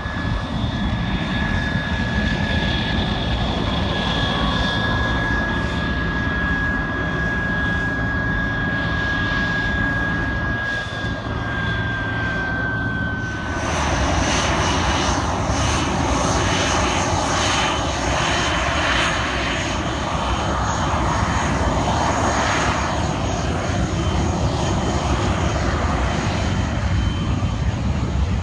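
Aircraft engine running steadily, with a high whine that drifts slightly lower. About halfway through, the sound changes abruptly to a louder, rushing engine noise with a higher whine.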